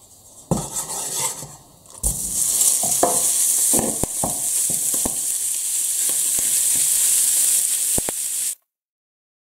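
Raw minced meat sizzling loudly as it hits hot oil in a non-stick frying pan, the sizzle setting in about two seconds in. A wooden spatula knocks and scrapes against the pan as the meat is broken up. The sound cuts off abruptly near the end.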